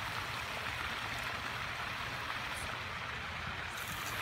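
Steady rushing background noise, like running water or wind, with no distinct events.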